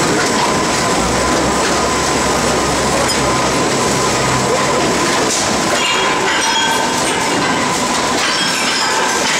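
Loud, steady din of a cardboard recycling sorting line's conveyor machinery, with a constant whine and clattering that gets busier about two-thirds of the way through.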